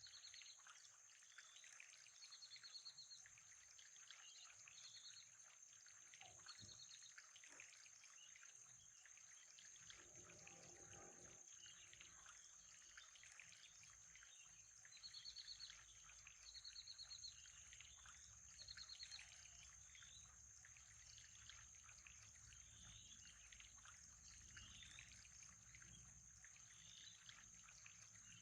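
Faint nature ambience: a steady high insect drone, short trilled chirps repeating every second or two in clusters, and a light trickle of water. A low rumble joins about a third of the way in.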